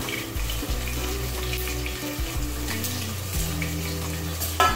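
Chopped vegetables sizzling as they land in hot oil in a stainless-steel pressure cooker, under background music. A sharp clink near the end.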